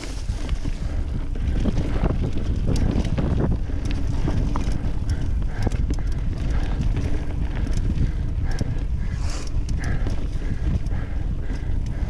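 Mountain bike ridden over rough singletrack: a steady run of knocks and rattles from the bike over the trail, with tyre noise and wind on the microphone.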